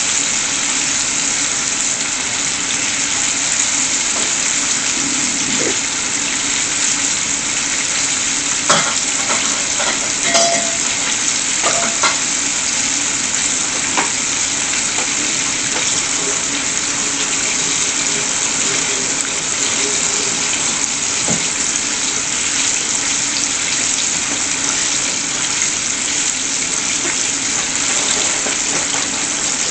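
Flour-dredged chicken deep-frying in a saucepan of hot oil: a steady, dense sizzle and bubbling, with a few light clicks about a third of the way in.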